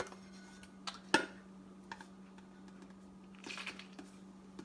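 Kitchen handling noises: two sharp clicks or knocks about a second in, then a brief rustle around three and a half seconds in, over a steady low hum.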